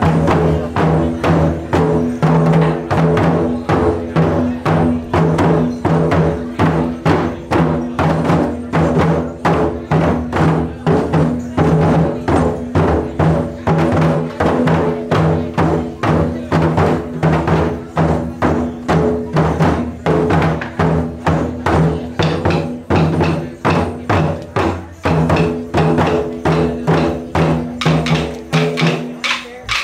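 Taiko drums struck in a steady, driving rhythm, several strikes a second, with the drums' deep ringing carrying between strokes. The playing stops abruptly near the end.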